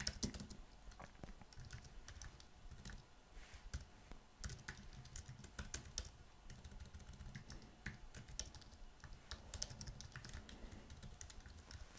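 Faint typing on a computer keyboard: an irregular run of key clicks with short pauses.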